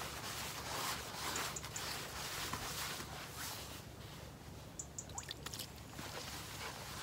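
Hands working groundbait and water together in a plastic bowl: wet rubbing strokes, about two a second for the first few seconds, then a few light drips of water around the middle.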